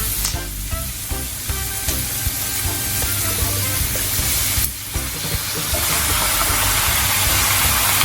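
Chicken pieces sizzling and frying in hot oil as they go into the pan. The sizzle briefly dips about five seconds in, then comes back louder.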